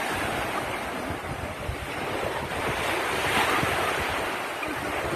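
Surf washing onto the shore, with wind buffeting the microphone; the wash swells a little about three seconds in.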